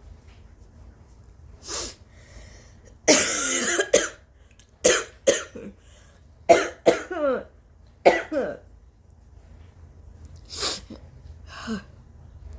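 A woman coughing repeatedly: a long harsh burst about three seconds in, then sharp coughs in clusters of two or three, with short breaths in between.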